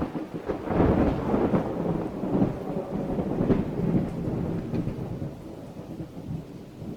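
Thunderstorm: rumbling thunder in repeated swells over steady rain, dying down in the last couple of seconds.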